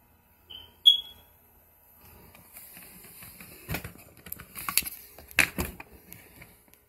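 Two short, high electronic beeps about half a second apart, the second louder, followed by a few seconds of rustling and handling noise with several sharp clicks and knocks.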